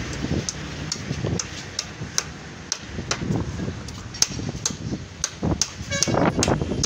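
Claw hammer striking nails into a wooden table frame: light, evenly spaced blows, about two to three a second, over a low street rumble.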